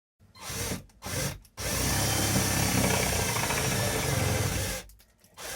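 Power drill driving a screw into the wooden support batten: two short bursts, then a steady run of about three seconds before it stops.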